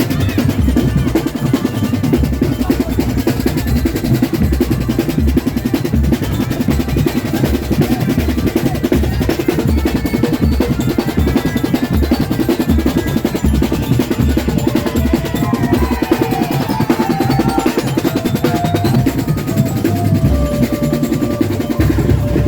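Loud parade music with fast, heavy drumming: dense bass-drum strokes and snare rolls. A wavering melody joins over the drums in the second half.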